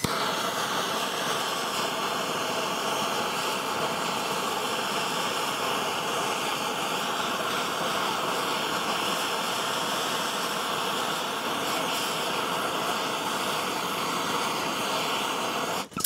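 Handheld blowtorch running, its flame hissing steadily as it is played on a metal padlock to melt through it; the sound cuts off abruptly near the end.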